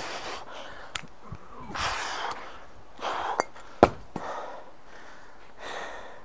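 Hard, hissing breaths pushed out in short bursts during kettlebell juggling, with a sharp knock a little under four seconds in as the kettlebell comes down onto the dirt.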